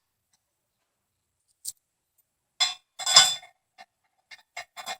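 Steel concrete anchors clinking as they are handled and set into drilled holes: a few sharp metal clinks, the loudest about three seconds in, then light ticks near the end.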